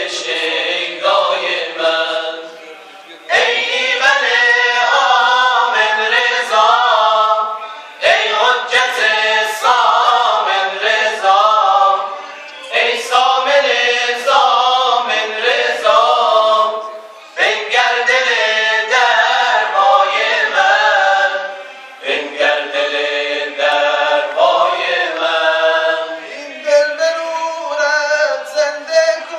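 Male a cappella group singing tawashih, Islamic devotional chant: a winding, ornamented melody in phrases of about four to five seconds, with short breaks between them.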